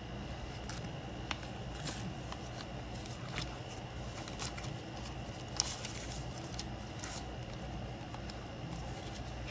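Paper bills and envelopes being handled: scattered soft rustles and small clicks over a steady low background hum.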